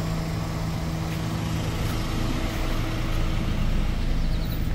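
A minibus engine idling with a steady low hum.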